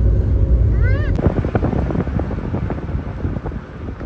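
Wind buffeting the microphone with a low rumble, a short high rising-and-falling voice about a second in, then a run of quick crackles that tail off.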